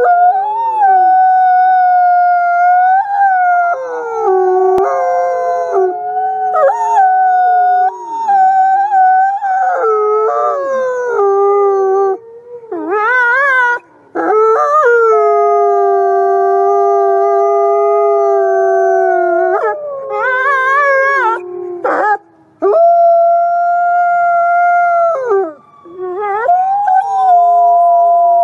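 White wolf howling: long, drawn-out howls held on a steady pitch, often with two notes sounding at once. Some howls slide down at the end, there is a wavering, quavering stretch about halfway through, and a few brief pauses for breath.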